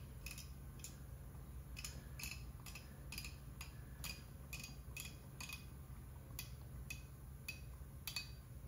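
Faint, irregular light clicks, about two a second, from a screwdriver turning an idle mixture screw into a two-barrel Motorcraft carburetor body against its spring, run down until it just seats.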